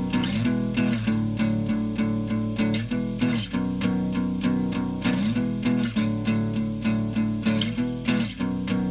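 Background music: a plucked string instrument, guitar-like, picks a steady run of notes over a sustained bass line.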